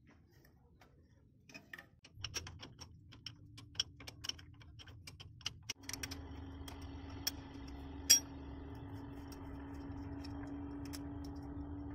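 Plastic wiring connectors on a truck being unclipped by hand: a run of small sharp clicks and snaps. About six seconds in a steady low hum starts and carries on under a louder snap about two seconds later.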